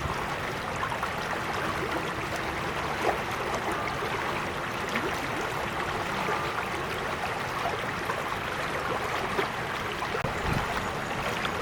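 Creek water flowing and trickling steadily over stones, with many small splashes and gurgles.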